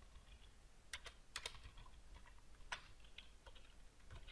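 Computer keyboard being typed on: a few faint, scattered keystrokes, the strongest about a second in, a quick pair just after, and one near the middle.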